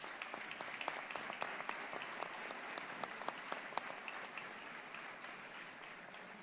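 Audience applauding, the claps thinning out and fading away over the last two seconds or so.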